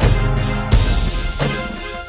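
Background music with a steady beat: bass, drums and a cymbal crash about three-quarters of a second in.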